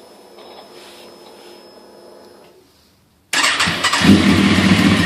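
Fuel pump humming faintly as it primes, stopping shortly before the 2004 Kawasaki ZX-10R's inline-four engine cranks and fires about three seconds in, then settles into a steady idle. This is the engine's first start after reassembly.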